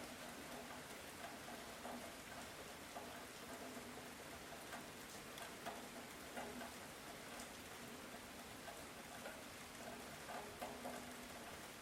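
Light rain falling steadily, with individual drops ticking and pattering on leaves and surfaces.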